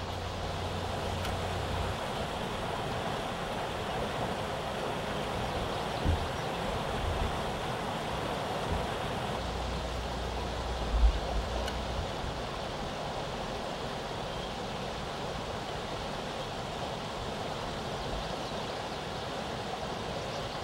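Steady rush of stream water pouring over a small spillway and riffling past. A few low thumps come near the start, at about six seconds and at about eleven seconds, the last the loudest.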